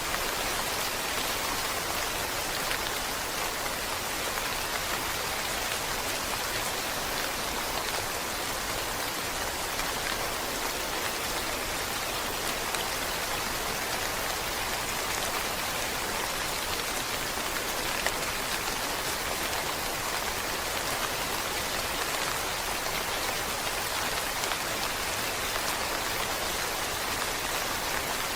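Steady rain falling on a surface, an even hiss of many drops with faint individual patters.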